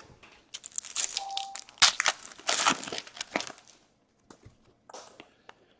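Foil hockey card pack wrappers crinkling and tearing open, followed by a few light clicks of cards being handled.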